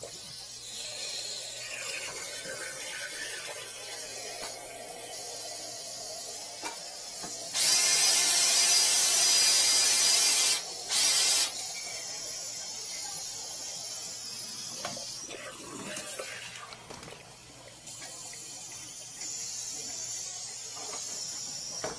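A loud rush of water at a sink drain for about three seconds, which stops and then comes once more briefly. Rustling and knocking of hands working among the under-sink pipes around it.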